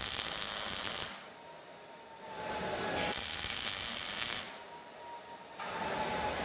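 Wire-feed welding arc crackling in two short bursts, tack-welding a steel square-tube table frame in a fixture jig: the first for about a second, the second starting about three seconds in and lasting about a second and a half.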